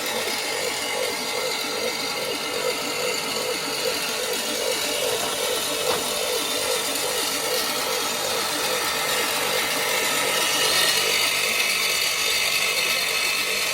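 Small battery-powered concrete mixer running steadily, its electric motor driving the drum with a regular pulsing beat about three times a second.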